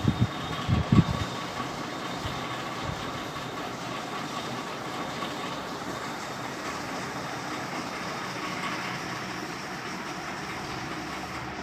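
Atomberg BLDC fan running with a steady whirring noise and a faint thin whine, the noise its owner calls a severe problem. A few low thumps in the first second.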